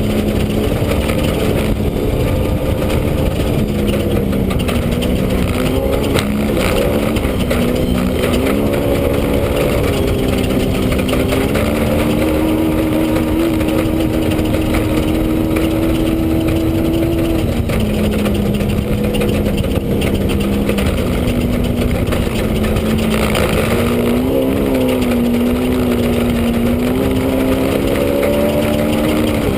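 Off-road race vehicle's engine at speed, heard from inside the cockpit, over a steady low rumble. Its pitch rises and falls, holds steady for a few seconds mid-way, then drops.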